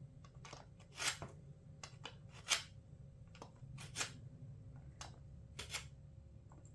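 Pruner blade being drawn through the sharpening slot on the end of a Sharpal multi-tool sharpener: a series of short scrapes of steel, roughly one every second or less.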